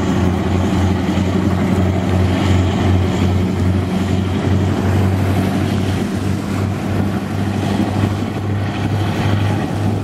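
Kometa hydrofoil's twin diesel engines running hard with a deep, steady drone, over the rush of water and spray, as the vessel rises onto its foils at take-off.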